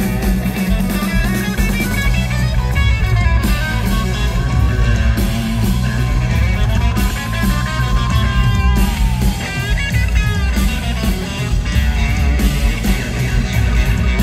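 Live band playing loudly: an electric guitar plays a lead line with long bent notes over bass guitar and drums.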